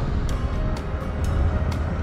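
Background music with a steady beat, over the low rumble of a motorcycle on the move.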